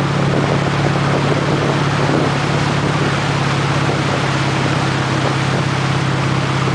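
Motorboat engine running at a steady towing speed, a constant low hum, under the rush of water churning in the wake and wind on the microphone.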